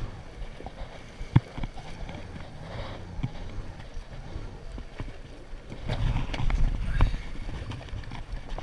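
Jet ski running slowly on open water, its engine a low rumble under wind buffeting the microphone and water splashing, with a few sharp knocks; the rumble grows louder about six seconds in as it comes up alongside an inflatable boat.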